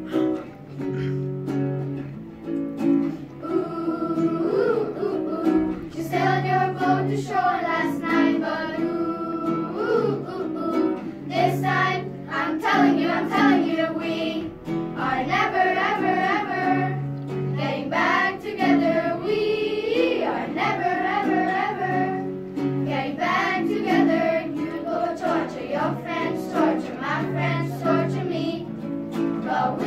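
A group of children singing a song together in unison over instrumental accompaniment.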